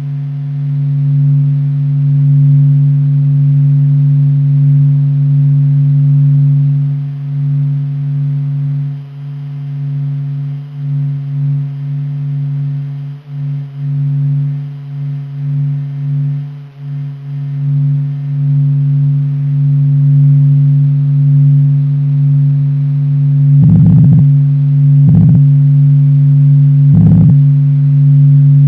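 A deep, steady drone hum on one low pitch that swells and fades in loudness, presented as NASA's recording of the Sun's sound. Three short crackles break into it near the end.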